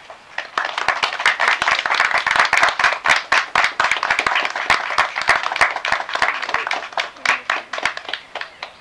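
Wedding guests applauding: many hands clapping irregularly, starting about half a second in and thinning out near the end.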